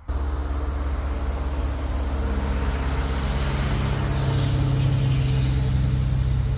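A tractor-trailer going by on the road, its diesel engine droning under load as it climbs a hill, with tyre noise; it grows a little louder past the middle.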